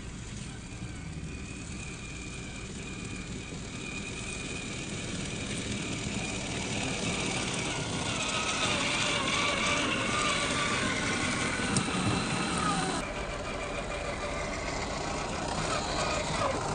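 Gmade GS02F RC crawler's electric motor and gearbox whining, the pitch wavering with the throttle, over the crunch of tyres on pine needles and roots. It grows louder as the truck nears, and the sound drops in level suddenly near the end.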